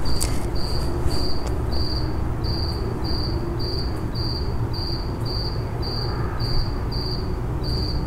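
Crickets chirping in an even rhythm, nearly two chirps a second, over a low steady rumble.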